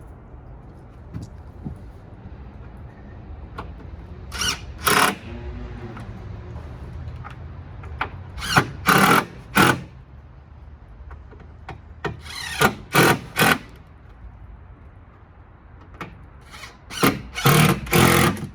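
Power drill running in short trigger bursts: four groups of two or three quick pulls, a few seconds apart.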